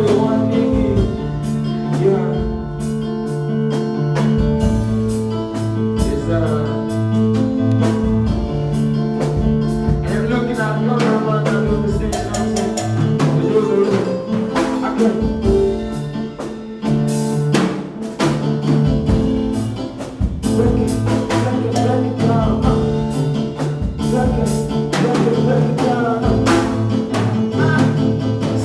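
Live band playing during a sound check: a drum kit keeping a steady beat under a held bass line and chords.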